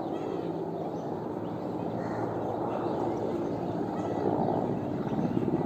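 Distant helicopter droning steadily overhead, with birds calling faintly.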